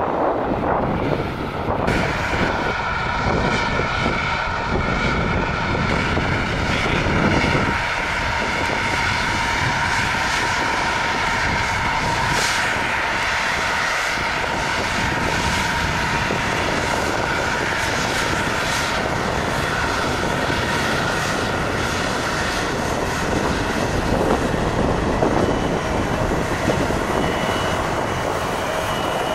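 Delta Connection Bombardier CRJ-900's twin rear-mounted General Electric CF34 turbofans running at low power, a steady jet whine over a low rumble, as the jet moves along the runway close by.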